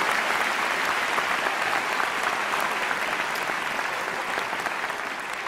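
Large audience applauding, the applause slowly dying down.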